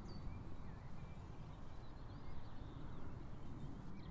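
Quiet outdoor ambience: a few faint bird chirps, clustered about two to three seconds in, over a steady low rumble.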